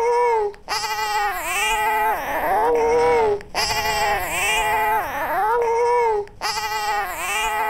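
A recorded baby boy's crying, played back as a sample through a granular synthesizer. The grains are faded in a triangle shape. The cry comes in repeating phrases of about three seconds, each broken off by a short gap, with its pitch bending up and down.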